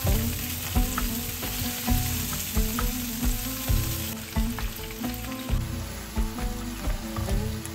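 Shallots, garlic, tomato and chilies sizzling in hot oil in a non-stick frying pan as they are stirred, with background music playing over it.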